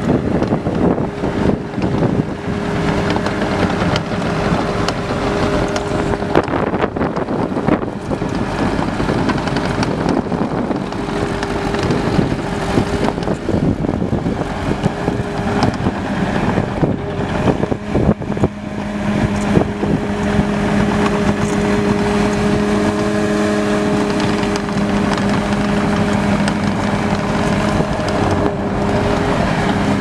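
Kubota V3307 3.3-litre four-cylinder diesel of a Bobcat T650 skid steer running, with wind buffeting the microphone. Its note grows steadier and a little louder about two-thirds of the way through.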